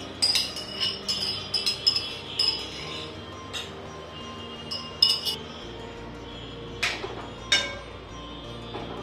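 Metal ladle clinking and scraping against a metal kadhai while stirring: a quick run of ringing clinks in the first two and a half seconds, then single clinks roughly every second.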